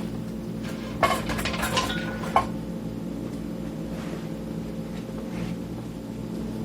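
Small metal screws and a screwdriver clinking and rattling about a second in, ending in a sharp click, during the unscrewing of a cassette multitrack recorder's case. After that there is quieter handling over a steady low electrical hum.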